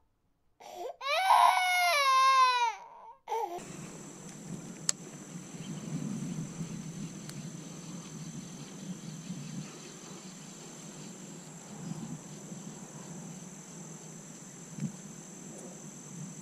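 A comic crying sound effect dubbed in to mark a fishing fail: one loud wail that wavers and falls in pitch. It cuts off at a little over three seconds. The steady outdoor background noise of the lakeshore follows, with a faint steady high hiss.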